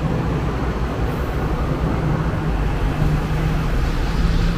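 Hong Kong double-decker electric tram running, heard on board: a steady rumble with a low hum that comes and goes.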